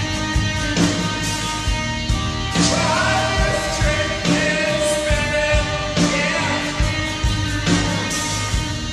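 A pop-rock song with a singing voice over a steady drum beat.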